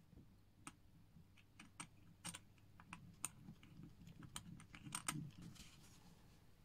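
Faint, irregular small clicks and taps of a watch case and small metal tools being handled while the case is refitted onto a watch.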